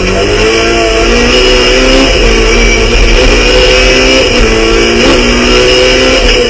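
Peugeot 106 Rally Cup car's four-cylinder engine pulling hard at high revs, heard from inside the stripped cabin, with road noise underneath. The pitch climbs and then dips back several times as the driver changes gear.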